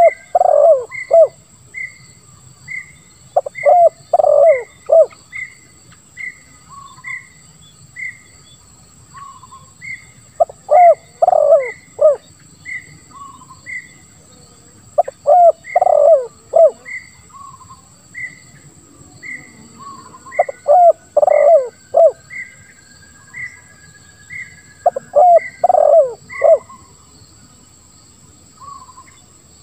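Spotted dove (tekukur) cooing in the 'lambung kuk 1' song style with a rough, deep 'ngeruk' voice. It gives six short phrases of several coos each, a few seconds apart.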